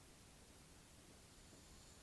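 Near silence: faint steady hiss of room tone, with a faint high whine in the second half.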